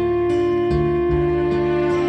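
Instrumental title music: a held melody note over a bass line that changes every half second or so.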